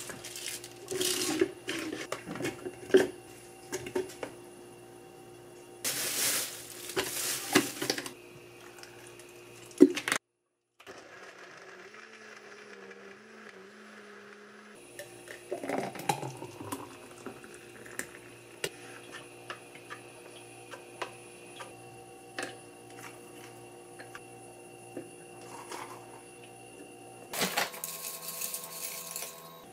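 Kitchen prep sounds: clicks and rustles of handling the blender jar and ingredients, then a Kitchen Flower countertop blender running faintly and winding down with a falling whine about halfway through. Near the end, granola poured from a bag into a bowl rattles briefly.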